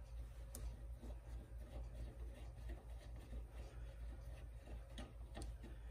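Faint, irregular small clicks and ticks of a No. 12 screw being turned by hand with a screwdriver into aluminium tubing.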